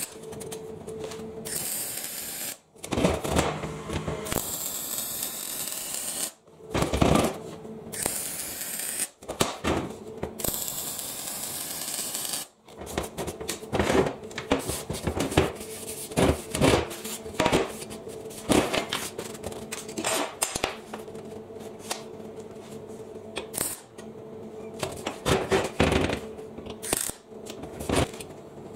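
MIG welder tack-welding steel box section: a few short runs of crackling arc hiss, each a few seconds long, broken by abrupt cuts. These are followed by clinks and knocks of steel and hand tools being handled, over a steady hum.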